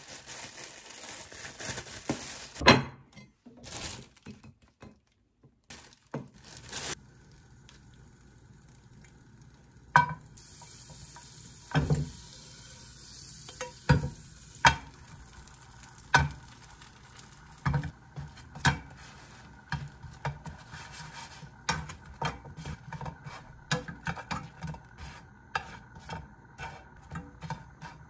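Plastic bread bag rustling at the start, then butter sizzling in a frying pan on a gas hob. After that come many sharp clinks and taps of tongs against the pan as ciabatta slices are fried in the butter.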